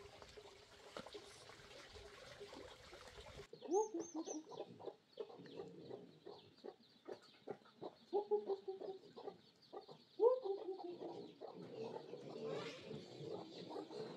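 Domestic chickens clucking, with several louder drawn-out calls, starting about three and a half seconds in after a faint steady hum; a few high chirps come with the first calls.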